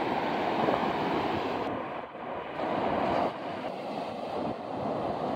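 Ocean surf washing onto a sandy beach, mixed with wind buffeting the microphone: a steady rushing noise that dips briefly about two seconds in.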